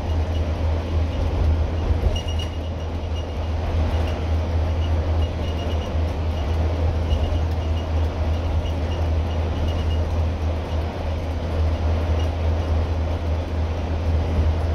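Scania N230UD double-decker bus's five-cylinder diesel engine running steadily under way, heard from inside the lower deck as a deep drone over road and tyre noise, with faint high ticks coming and going.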